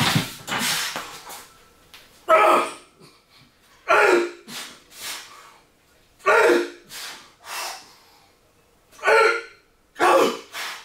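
A man's forceful breaths and grunts while pressing a barbell overhead: a sharp, loud exhale roughly every two seconds, one per rep, each followed by a shorter, quieter breath.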